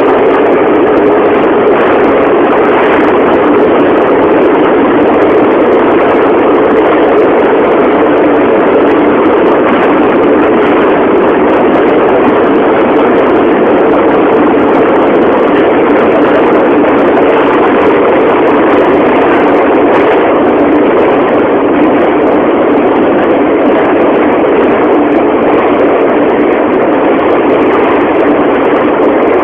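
Subway train running, a loud, steady, unbroken noise with no change through the whole stretch.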